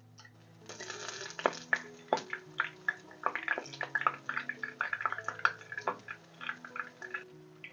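Battered chicken strips frying in hot oil in a pan, sizzling with a dense crackle of sharp pops. The sizzle starts just under a second in and dies away shortly before the end.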